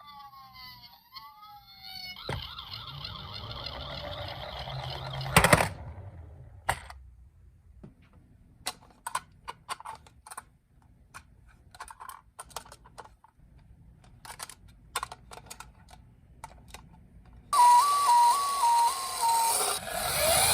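Toy ambulances on a ramp. A siren's falling wail fades out, a rumble builds for a few seconds and ends in a loud knock, then there are scattered light plastic clicks and taps, and near the end a loud electronic hi-lo siren starts up.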